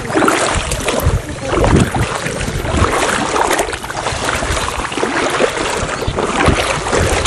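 People wading through shallow, weed-covered floodwater, their steps making irregular splashes and sloshes.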